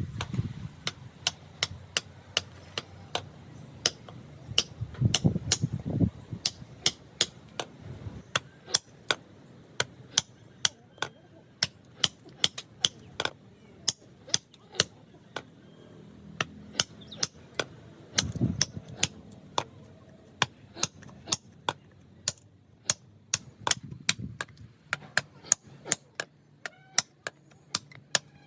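Repeated hammer blows in a woodworking job on a wooden wheel: a steady rhythm of sharp strikes, about two a second, sparser and fainter in the first few seconds.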